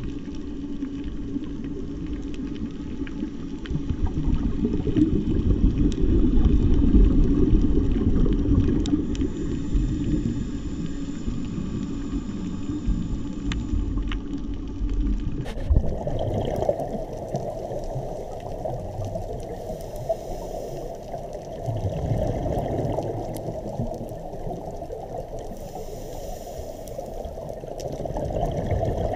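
Muffled underwater sound heard through a camera's waterproof housing: a steady low rush with gurgling swells from a scuba diver's regulator exhaust bubbles. Its tone changes abruptly about halfway through.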